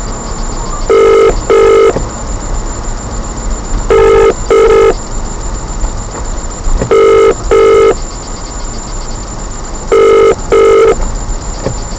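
Telephone ringback tone of an outgoing call: a double ring, two short steady beeps close together, repeated four times about every three seconds, over steady car road noise.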